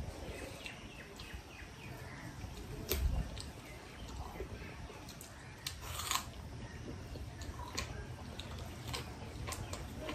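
Quiet eating sounds of people eating rice and meat with their hands from metal plates: scattered small clicks and smacks of chewing and fingers on the plates, with a soft low thump about three seconds in.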